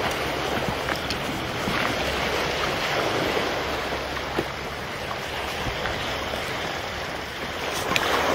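Small sea waves washing and breaking against a concrete slipway, a steady rush of surf.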